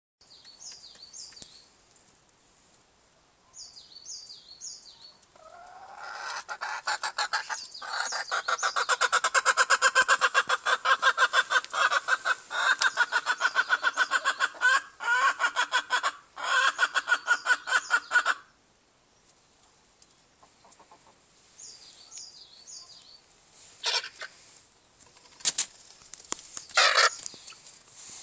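Appenzeller Spitzhauben chickens cackling: a loud, fast run of repeated calls lasting about thirteen seconds, then a few single short calls near the end. Short high chirps come before and after the run.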